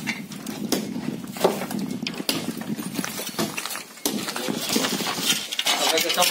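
Hammer blows striking a plastered brick wall during demolition: a run of sharp knocks at an uneven pace, about one a second.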